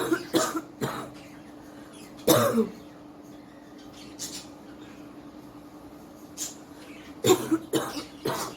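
A woman coughing in short bouts: three quick coughs at the start, another about two seconds in, then a run of about four near the end. She says she is ill with a bad cough that brings up green phlegm.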